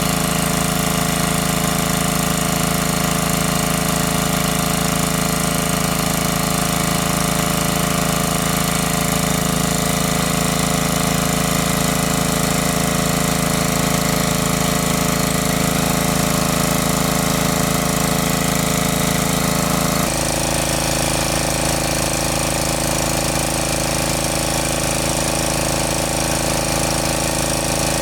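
Engine-driven water pump running steadily under load. Its note changes abruptly about twenty seconds in.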